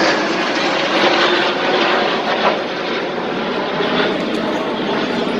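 Engines of a formation of light aircraft flying over: a loud, steady drone.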